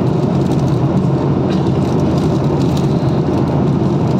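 Steady airliner cabin noise: the engines and rushing air heard from inside the passenger cabin, a loud, even rumble.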